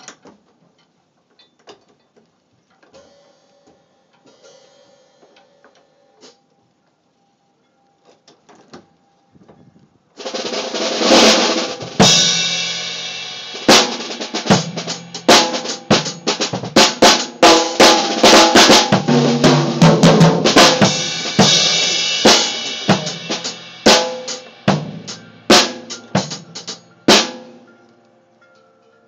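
Acoustic drum kit played loudly: a few faint knocks for about ten seconds, then a dense run of snare and bass drum hits with cymbals that stops about two seconds before the end.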